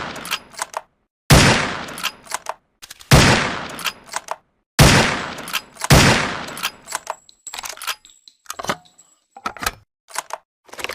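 SRP rifle sound effect: four gunshots about one to two seconds apart, each with a decaying echo and a few small mechanical clicks after it. In the last few seconds a run of lighter metallic clicks and clanks follows, with no more shots.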